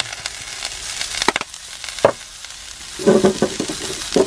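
Spam, onions and vegetables sizzling in an oiled frying pan, a steady hiss. A few sharp clicks about a second in, and a run of quick rattling knocks in the last second.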